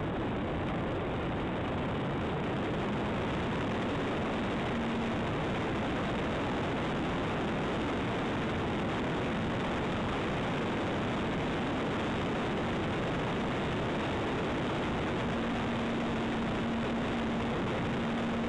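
Steady rush of wind and propeller noise heard from a camera riding on a flying model Zivko Edge 540 aerobatic plane. A faint hum from the motor comes and goes through it.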